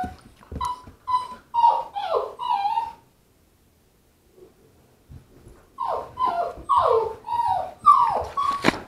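Puppies whining and yelping in short cries that slide down in pitch, about two a second. The cries stop for about two seconds in the middle, then start again.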